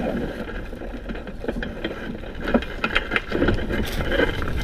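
Dry corn stubble crackling and rustling in irregular clicks as a person shifts and stands up in it under a hang glider, over a steady low wind rumble on the microphone.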